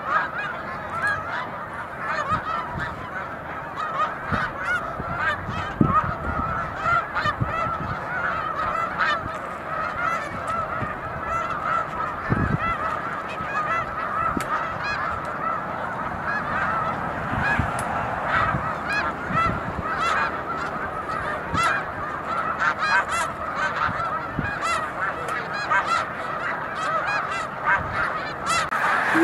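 A huge flock of snow geese calling together: a continuous, dense chorus of many overlapping honks.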